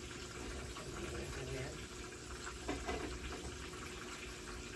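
Steady kitchen background noise with a faint constant hum, broken by a few light clatters of utensils or cookware a little under three seconds in.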